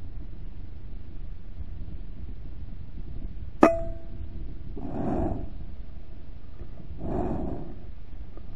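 A single sharp shot from a Brocock Compatto PCP air rifle a little over three and a half seconds in, with a brief metallic ring after it. Two short breathy rushes of noise follow, about two seconds apart.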